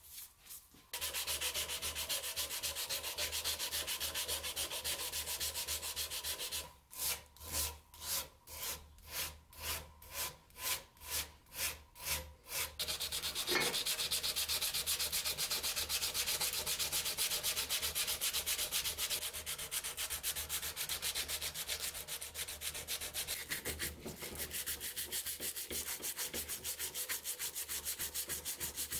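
Abrasive paper rubbed by hand over an old forged hammer head held in a vise, in quick back-and-forth scratching strokes. About seven seconds in the strokes slow to roughly two a second for several seconds, then turn quick again.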